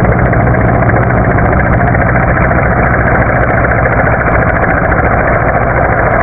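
Helicopter hovering and flying low, its turbine engine and rotor running at a steady, even pitch.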